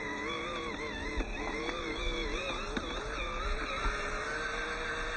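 Electric drive motor and gearbox of a 1/18-scale FMS Toyota Land Cruiser 80 RC crawler whining, the pitch wavering up and down as throttle and load change, then holding steadier in the second half.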